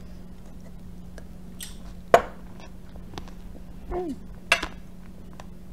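A metal spoon clinking against a glass cup in a few separate sharp clicks, the loudest about two seconds in, over a steady low hum. Near the end there is a short voiced sound from the eater.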